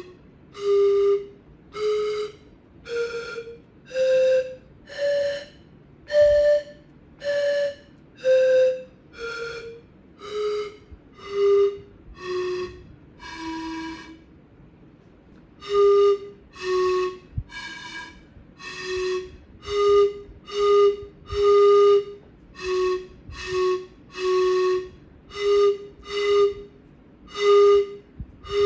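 Homemade eight-tube pan flute of clear plastic tubes stopped with caps, blown one breathy note at a time. It climbs a scale from low do to high do and comes back down. After a short pause it plays a simple tune with many repeated notes.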